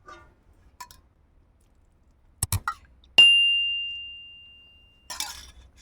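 A few soft knocks of kitchen utensils, then one bright clink of a vessel being struck, its single high ringing tone fading over about two seconds.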